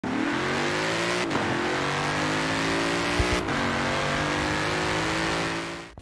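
Car engine accelerating hard through the gears: its pitch climbs, drops at an upshift a little over a second in and again about three and a half seconds in, climbs again, and fades out near the end.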